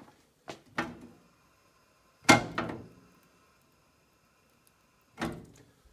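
A few knocks and thumps, the loudest a sharp one about two seconds in, followed by a faint steady high whine that cuts off with another thump near the end.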